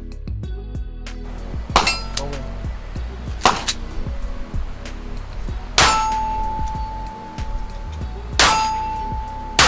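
Five pistol shots a second or two apart, each answered by the clang of a steel target being hit. The later hits leave the plate ringing with one long steady tone.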